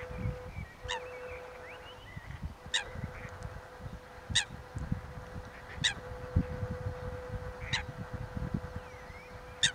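Short, sharp waterbird calls, six of them, about one every one and a half to two seconds, over a low rumble and a faint steady hum.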